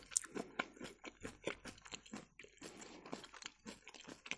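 Close-miked chewing: a quick, irregular run of small crunches and clicks as a mouthful of food is chewed.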